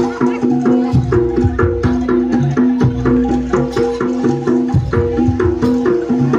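Jaranan gamelan music playing: tuned percussion repeats a fast, even pattern of ringing notes over drum strokes, with a deeper beat about every second or two.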